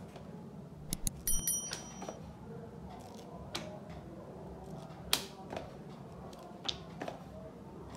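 Paper pages of a thick hardcover textbook being turned, each turn a short papery flap or swish. There is a quick cluster of sharp clicks about a second in, and single page flaps at intervals after it.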